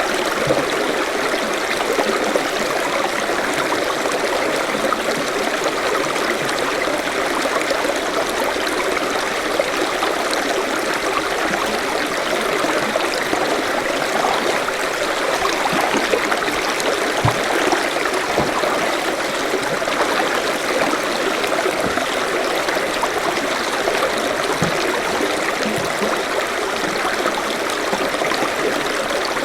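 Forest stream running steadily: a continuous rush of water with small gurgles and splashes over it.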